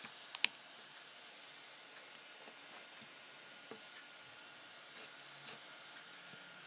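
Faint close handling sounds of hands working pieces of cucumber on a countertop: a sharp click or tap about half a second in, scattered small ticks, and a couple of soft taps around five seconds in.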